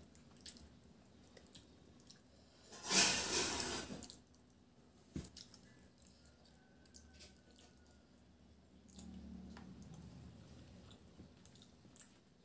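Eating by hand: fingers mixing rice with mustard-sauced hilsa on a plastic plate, with soft wet squishes, small clicks and chewing. A louder wet rustle comes about three seconds in and lasts about a second.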